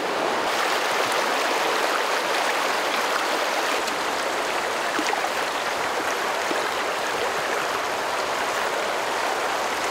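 Fast, powerful mountain river current rushing steadily over rocky rapids.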